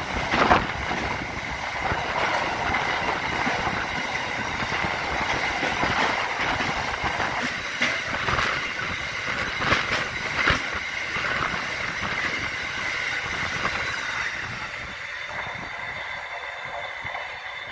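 Freight wagons of a mineral train rolling past, wheels clicking over rail joints with a faint steady high wheel squeal; the sound fades away over the last few seconds.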